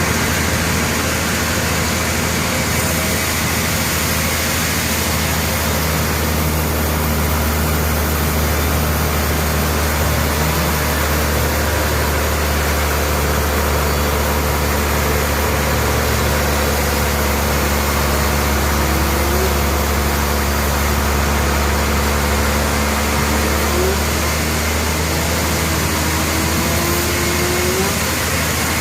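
Sawmill saw running steadily while ripping a log, a constant low hum under an even whirring noise. There are a few brief upward pitch glides in the last third.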